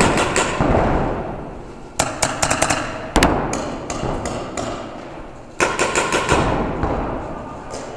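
Paintball markers firing in quick strings of sharp pops: a burst just at the start, several shots about two seconds in, another around three seconds, and a further string near six seconds.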